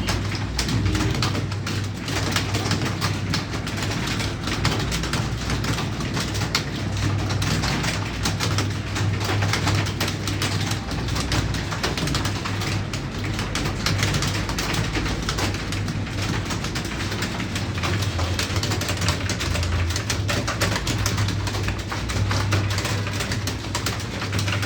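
Many computer keyboards being typed on at once in a timed typing test, a dense, continuous clatter of key clicks over a low hum that swells and fades.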